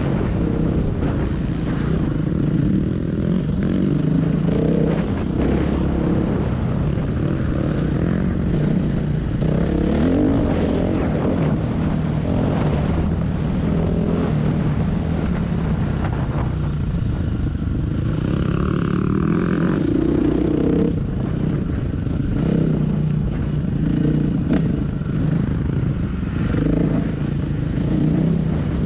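Dirt bike engine running as the bike is ridden, its revs rising and falling.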